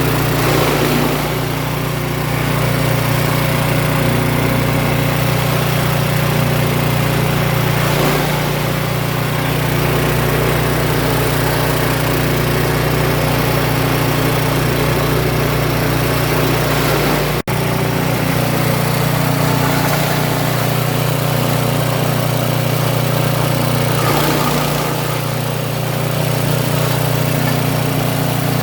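Engine-driven chopper for cogon grass and peanut stalks running steadily with a loud, constant drone; the level sags briefly a few times, and the sound cuts out for an instant about two-thirds of the way through.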